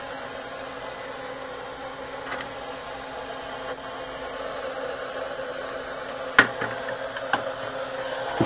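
Steady electrical hum from a ham radio test bench, the transceiver and its power supply running. Two sharp knocks come about two-thirds of the way through.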